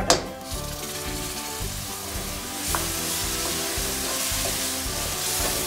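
Tomato purée poured into hot oil and fried onion masala in a kadhai, landing with a sharp splash right at the start and then sizzling, the sizzle growing louder from about halfway as a slotted spoon stirs it.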